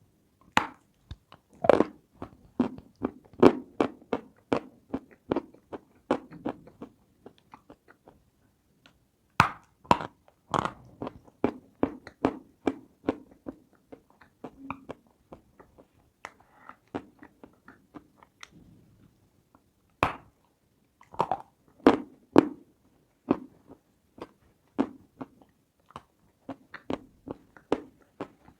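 Close-miked eating of something hard and crunchy: sharp crunching bites followed by runs of crunchy chewing, in bursts with a few short pauses.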